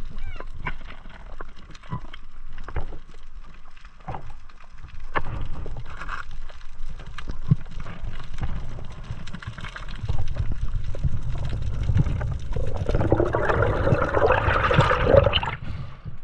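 Sea water sloshing and washing around shore rocks, with scattered sharp knocks, and a louder rush of water from about twelve and a half seconds in that lasts about three seconds.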